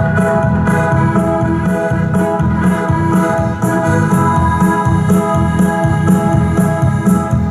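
Live dance-band music over loudspeakers: electronic organ chords held over a pulsing bass line and a steady cymbal beat, with no singing.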